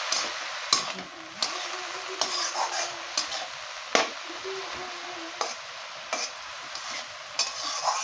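Red amaranth greens sizzling as they fry in a steel karahi, stirred with a metal spatula that scrapes and clinks against the pan about once a second.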